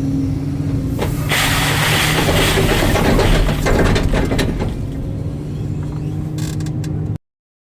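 Hitachi excavator's diesel engine running steadily. From about a second in, a few seconds of loud rattling, hissing noise from the machine at work lie over the engine. The sound cuts off abruptly near the end.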